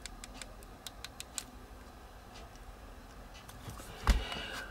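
Small plastic buttons on an Aspire Nautilus Prime X pod mod being clicked: about eight quick clicks in the first second and a half, then a few more. A dull knock from handling the device comes near the end.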